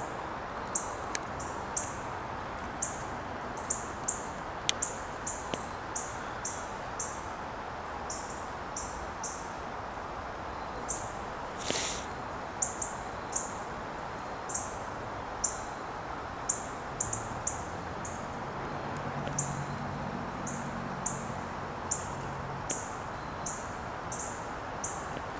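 A bird's short high chirps, repeating irregularly about once a second, over a steady outdoor background hiss. A brief rustle comes about halfway through, and a faint low drone in the last third.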